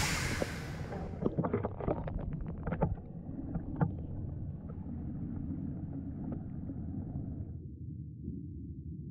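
City sound played through a loudspeaker sunk in a river and picked up underwater by a hydrophone. It comes through as a muffled low rumble, with a flurry of sharp clicks and knocks in the first few seconds. About seven and a half seconds in the higher sounds drop away, leaving only the low, muffled rumble.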